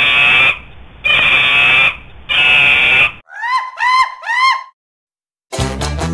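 Monkey screeching: three loud screams of under a second each, then three quick calls that rise and fall in pitch. Ska music with drums and brass starts about five and a half seconds in.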